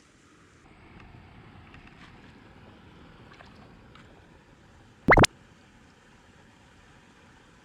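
Faint steady rush of river water and open air, with one brief, very loud rising chirp about five seconds in.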